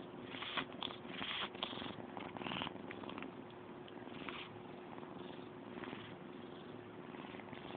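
Domestic cat purring steadily, with several brief rustles in the first three seconds.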